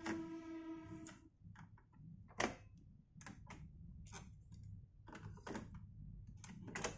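Plastic clicks and clacks from cassette handling on a Sanyo M-XW400F dual-deck boombox: a cassette door popping open, a tape pulled out, another tape set into the other deck and its door pushed shut with a click near the end. At the start, a short held note from the tape cuts off about a second in as playback stops.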